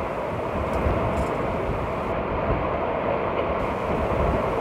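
Steady rush of water streaming along the hull of a sailing yacht moving fast under sail, with wind buffeting the microphone in low, uneven gusts.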